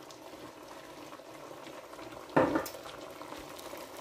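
Pot of chicken curry simmering on the stove, a steady bubbling, with one brief knock about two and a half seconds in.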